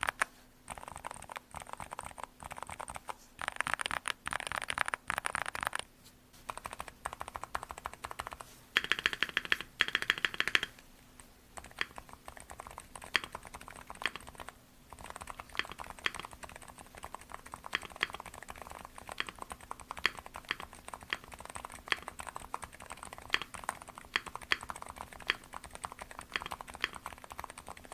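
Silent mechanical keyboard switches, the JKDK Jingwan V2 and a JJ switch, pressed over and over. There are two bursts of rapid pressing, then a long run of separate keystrokes, several a second.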